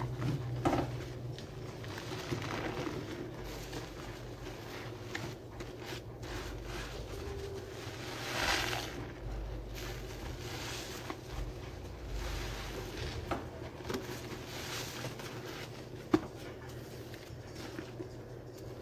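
Soapy sponge being squeezed by hand, suds squishing and crackling in soft, uneven swells with a few small clicks, the loudest squeeze about halfway through.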